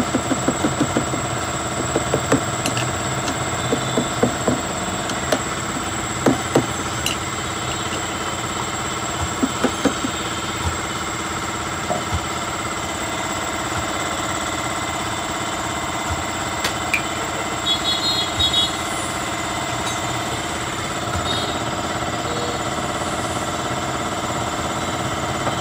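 A machine running steadily, like an engine idling, with a steady hum, and several short runs of rapid knocks, the longest near the start.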